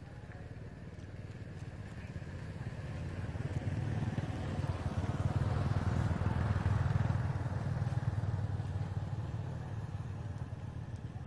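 A motor vehicle passing by: a low engine rumble that grows louder to a peak about six seconds in, then fades.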